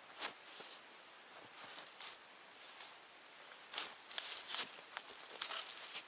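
Conifer branches rustling and snow crunching underfoot as branches are laid across the top of a snow wall: a run of irregular short rustles and crunches, thickest from about four to five and a half seconds in.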